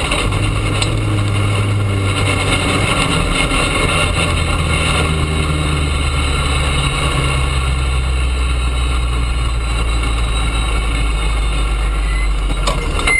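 Rally car's engine heard from inside the cockpit, running at low revs with its note dropping in steps as the car slows, over steady tyre and gravel noise from the dirt track.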